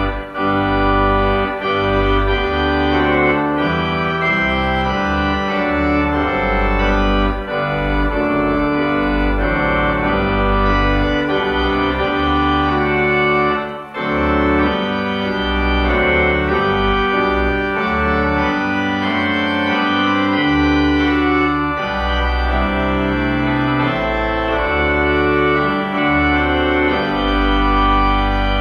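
Organ playing a hymn tune in slow held chords, with a short break about fourteen seconds in.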